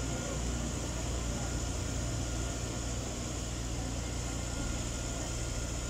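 An engine running steadily at idle, with an even low hum.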